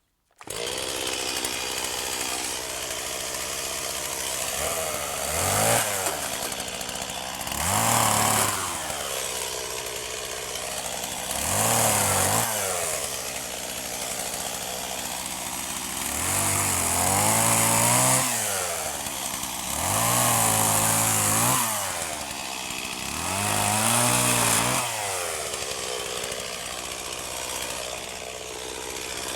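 Stihl MS250 two-stroke chainsaw idling and being throttled up to high revs six times, each rev rising in pitch, holding for a second or two, then dropping back to idle.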